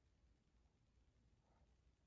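Near silence: the quiet pause between a sleeper's snoring breaths.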